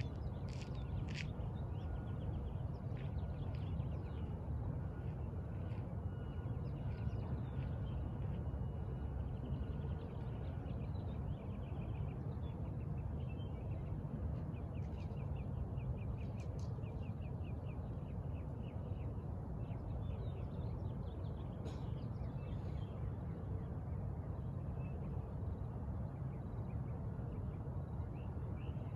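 Birds chirping and trilling over a steady low background rumble, with a run of rapid repeated calls in the middle.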